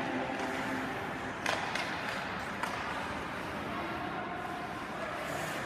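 Hockey-arena ambience: a steady hiss of the rink with a few sharp clacks of sticks and puck, the loudest about a second and a half in. Music ends just after the start.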